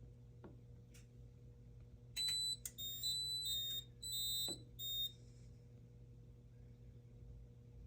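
Fire alarm control panel's piezo beeper giving a quick string of four or five short, high-pitched beeps over about three seconds, starting a couple of seconds in, over a low steady electrical hum.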